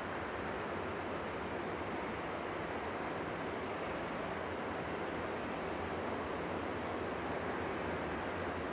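Twin CFM56-3 turbofans of a Boeing 737-500 running at taxi power as the airliner turns onto the runway, heard from a distance as a steady rushing hiss over a low hum.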